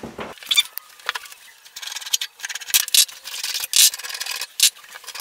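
Round incandescent bulbs being unscrewed by hand from the sockets of a chrome vanity light bar: a string of short rubbing, scraping squeaks.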